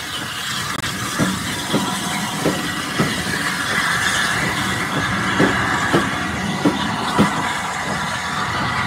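Passenger coaches of a steam-hauled train rolling past close by, their wheels clacking over rail joints about once or twice a second, over a steady rushing hiss.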